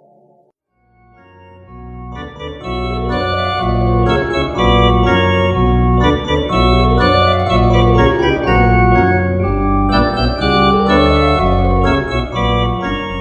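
Organ-style keyboard music. After a brief silence it swells in and plays loudly, with a pulsing bass under sweeping arpeggios that rise and fall in repeated arcs.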